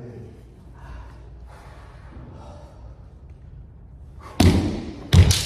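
Kendo sparring on a wooden floor: after a quieter few seconds, a loud sharp crack and thud of a foot stamp and bamboo shinai strike about four and a half seconds in, then two more quick impacts under a second later.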